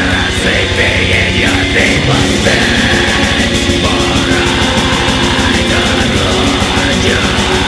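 Black metal music, loud and dense: distorted guitars holding chords that shift in steps, over fast, relentless drumming with a rapid repeating kick drum.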